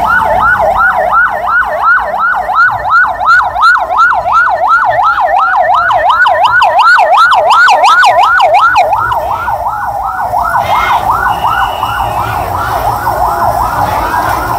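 Vehicle siren on a rapid yelp, its pitch sweeping up and down about three times a second, with a slower gliding siren tone underneath. It is loud and eases slightly after about nine seconds.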